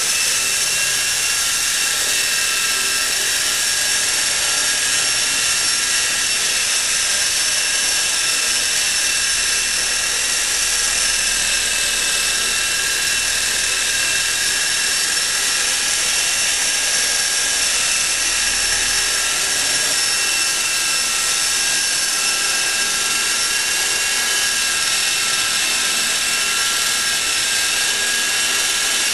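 Walkera Dragonfly 4 electric RC helicopter in flight: the steady, high-pitched whine of its motor and gears over the whir of the main rotor.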